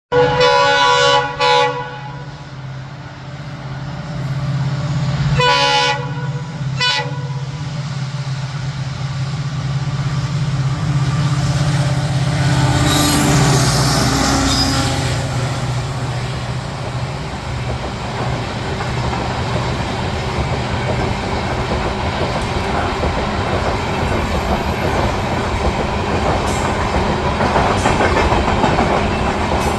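EMD WDP4D diesel locomotive sounding its multi-tone horn in short blasts, two near the start and two more about six seconds in, over the steady drone of its engine. From about thirteen seconds in the train runs past, with the noise of wheels on rails filling in and staying loud.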